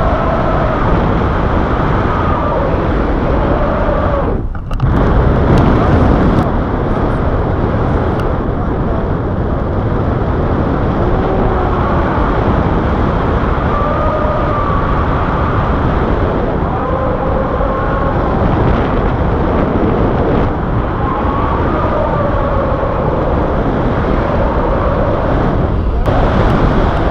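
Wind buffeting the microphone of an action camera held out from a tandem paraglider in flight: a loud, steady rumbling rush that dips briefly about four seconds in.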